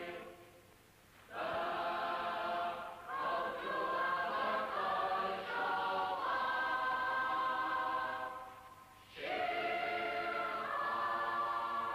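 A choir singing long held chords in slow phrases, with two short breaks between phrases.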